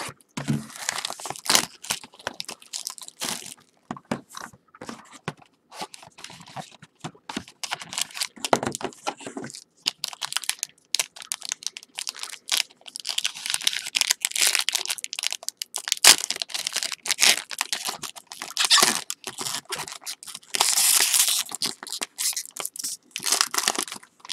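Plastic wrapping and packaging on a box of baseball trading cards being torn open and crinkled by hand, in many short irregular crackling bursts, with denser, louder stretches around the middle and near the end.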